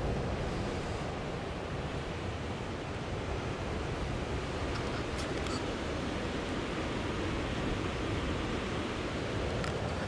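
Steady rushing of wind and ocean surf breaking against the rocks at the foot of the sea cliff, with wind buffeting the camera microphone.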